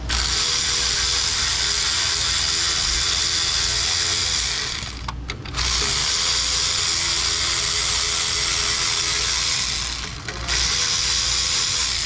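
A power tool's motor running in three long runs, stopping briefly about five seconds in and again about ten seconds in, as fasteners are driven while an engine-control module is swapped out.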